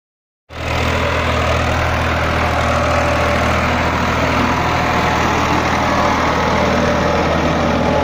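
Escort 355 tractor's diesel engine running steadily under load while pulling a plough through dry soil; the sound cuts in about half a second in.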